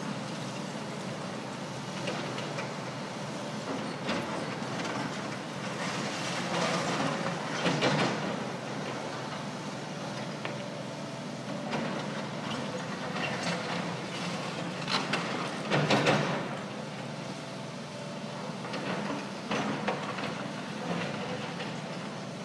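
Hydraulic excavators working a pile of brick demolition rubble: engines running steadily, with irregular scrapes and crashes as rubble is scooped and dropped, the loudest about eight and sixteen seconds in.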